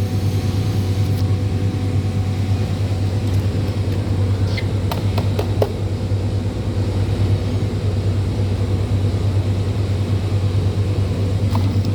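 Steady low mechanical drone of a running machine, unchanging throughout, with a few faint clicks about halfway through.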